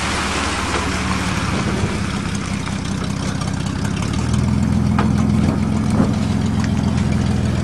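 1987 Dodge Dakota pickup's V6 engine idling steadily, a good runner, with a couple of short clicks about five and six seconds in as the driver's door opens.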